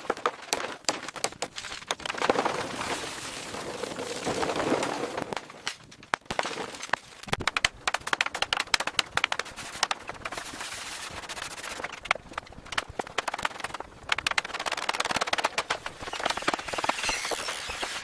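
Rapid, irregular knocking and clattering of renovation work, with stretches of rushing, hissing noise in between.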